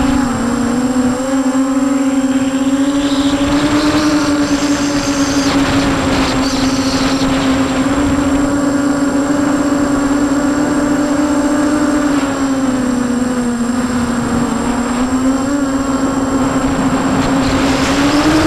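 Brushless motors and propellers of an EMAX 250-size FPV quadcopter, heard from its onboard camera: a steady, loud hum whose pitch wanders with the throttle, dips about 13 seconds in and climbs near the end.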